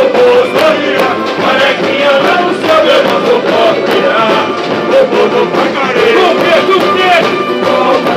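Samba-enredo blaring loud from a samba school's sound-truck loudspeakers: a sung melody over dense, driving percussion.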